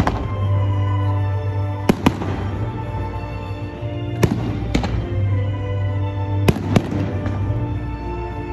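Aerial fireworks bursting overhead with sharp bangs, about seven of them, some in quick pairs a fraction of a second apart, over music with a strong bass.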